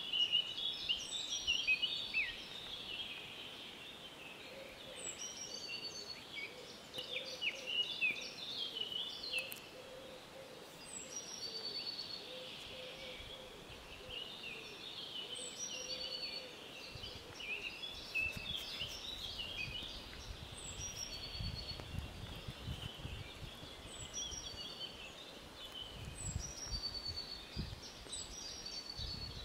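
Many songbirds singing at once in spring woodland, one of them repeating a short song that falls in pitch every three to four seconds. A low rumble joins in about halfway through.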